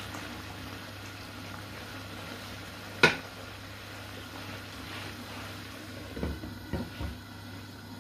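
Pot of chicken stock simmering on the stove with a steady bubbling hiss. A sharp clink of a utensil against the pot about three seconds in, and a few soft knocks near the end.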